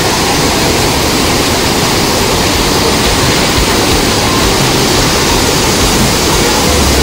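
Fast mountain river rushing over boulders in white-water rapids: a steady, loud rush of water.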